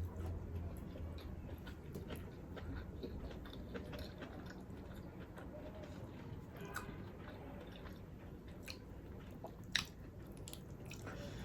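A person chewing a mouthful of food close to the microphone, with soft wet smacks and small clicks, and one louder click near the end.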